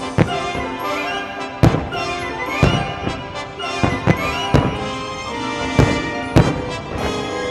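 Music playing throughout, with the sharp bangs of aerial firework shells bursting at uneven intervals over it, the loudest about one and a half seconds in and again near six and a half seconds.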